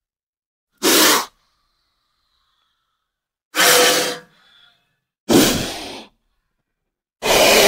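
Cobra hissing: four short, forceful hisses, each under a second long, coming a second or two apart.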